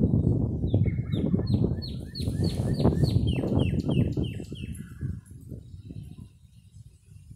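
Wind rumbling on the microphone, easing off after about five seconds, while a songbird sings a quick run of short down-slurred notes, about four a second, for a few seconds.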